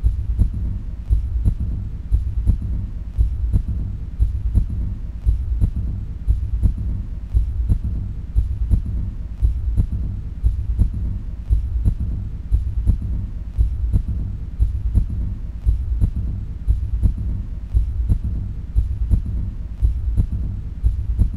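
A deep, low throbbing pulse repeating evenly at about two beats a second, like a slow heartbeat, over a steady low hum.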